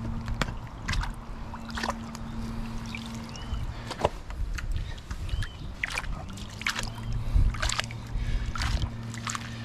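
Water sloshing and splashing in short bursts as a hand rummages through sea grapes in a shallow rock pool, under a steady low motor hum that fades out midway and comes back near the end.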